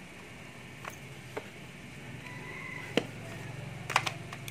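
Sharp plastic clicks and knocks of handheld power tools being picked up and handled, four or five separate clicks, over a faint low hum that grows a little stronger in the second half.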